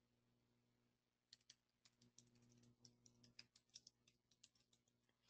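Near silence with faint computer keyboard typing: a run of irregular light key clicks, starting about a second in and stopping a second before the end.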